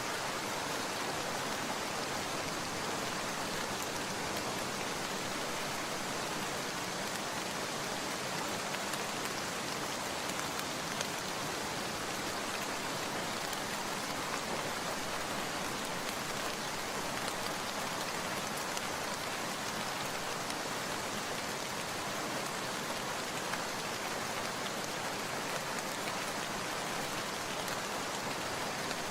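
Rain falling steadily, an even hiss that holds level throughout, with a few faint drop ticks.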